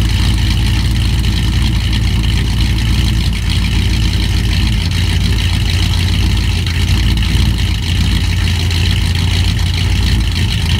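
454 big-block Chevy V8 in a 1953 Chevrolet pickup idling steadily through dual exhausts with SpinTech Pro Street 6000 mufflers, a deep, loud, even exhaust note.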